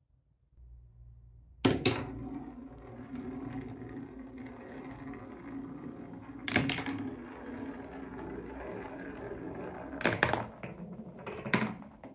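A marble rolling steadily around a wooden spiral track, with a sharp click about two seconds in and another near the middle. Near the end come several knocks as it passes into grooved wooden Cuboro blocks.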